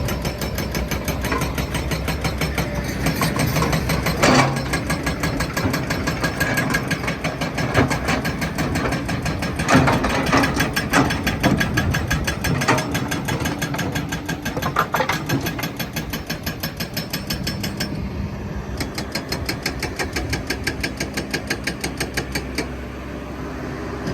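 Kobelco excavator's diesel engine running under load with a fast, even clatter, broken by a handful of loud knocks as big stones are loaded into a steel dump truck body.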